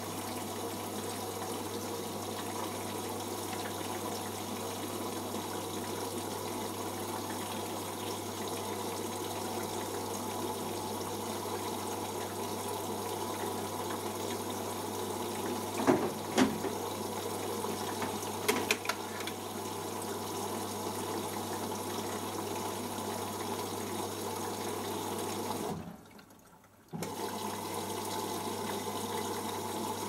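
Beko WMP511 washing machine filling with water through its inlet valve: a steady rush of water over a low hum. A few knocks come around halfway through, and near the end the water cuts off for about a second, then starts again.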